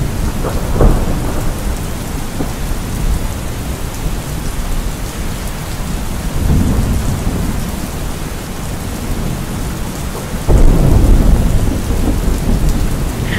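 Thunderstorm: steady rain with rolling thunder. A rumble comes about a second in and another around six and a half seconds. The loudest, longest rumble comes about ten and a half seconds in.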